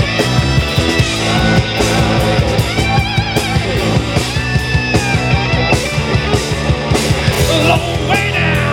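Rock band playing an instrumental section: a guitar lead with bent, gliding notes over bass and a steady drum beat.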